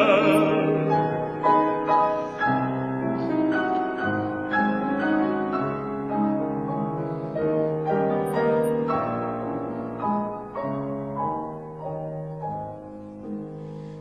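Piano playing a solo interlude between sung verses of a folk song, in struck chords and a melody that grows quieter near the end. The tenor's last held note, sung with vibrato, ends just at the start.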